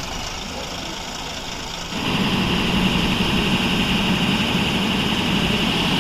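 Vehicle engine running with steady road and traffic noise, stepping up louder about two seconds in.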